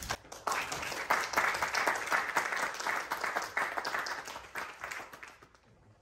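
Audience applauding: many people clapping together, which starts just after the thanks ends and dies away near the end.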